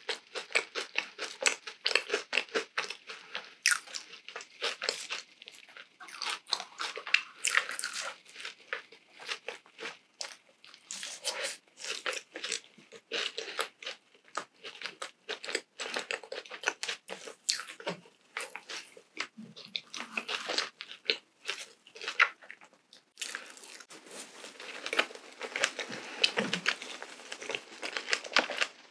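Close-miked chewing of a mouthful of donut with a crunchy, crumbly coating: dense, irregular crunching that eases off briefly now and then.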